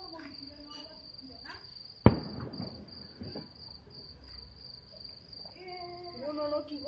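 A single sharp firework bang about two seconds in, followed by a short rumbling echo, over a steady high chirring of crickets. Distant voices come in near the end.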